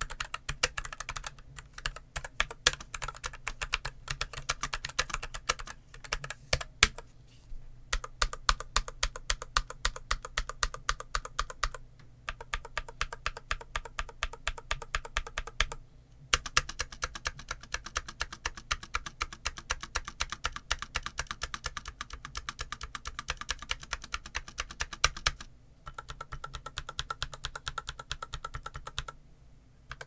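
Typing on a James Donkey S2 low-profile mechanical keyboard with Gateron Brown low-profile 2.0 switches and PBT low-profile keycaps. It is a fast, continuous run of keystrokes with short pauses every few seconds.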